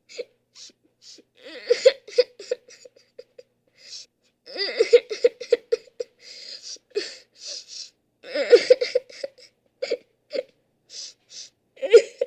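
A person crying: bouts of broken, whimpering sobs with gasping catches of breath, coming in waves about every three to four seconds.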